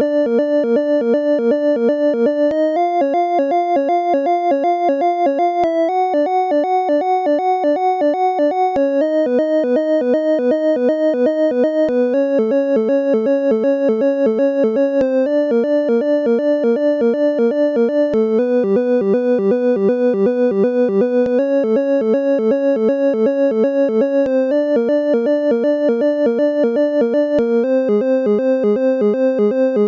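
Synthesizer music: a fast, even pulse of repeated chord notes, the chord changing every couple of seconds.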